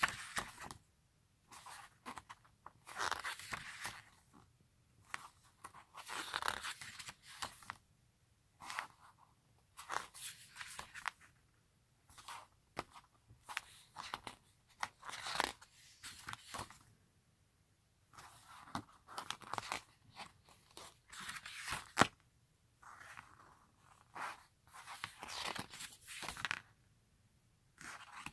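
Pages of a photo book being turned by hand one after another, each turn a brief paper rustle and swish, coming every second or two with short pauses. A single sharp tap sounds a little past the three-quarter mark.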